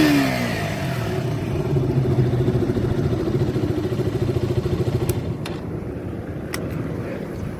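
KTM RC 200's single-cylinder 200 cc engine and loud exhaust, its revs falling back from a throttle blip at the start and then idling steadily. A few sharp clicks come about five to seven seconds in.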